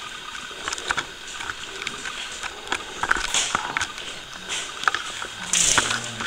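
Quiet room with scattered small clicks and taps of handling, and a short burst of rustling noise near the end.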